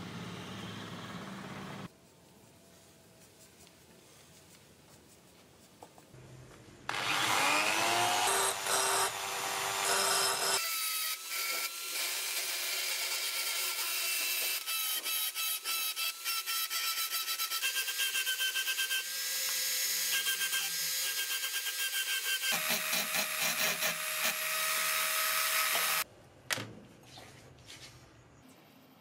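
Small handheld rotary tool spinning up with a rising whine about seven seconds in, then running at speed with a high whine as its fine bit grinds at the steel blade. It stops suddenly a few seconds before the end.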